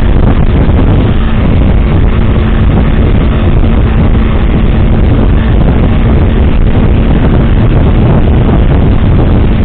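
Vehicle running on the road, heard from inside the cab: a loud, steady rumble of engine and road noise with a faint steady hum.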